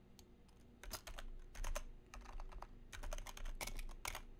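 Computer keyboard typing in short bursts of keystrokes with pauses between them.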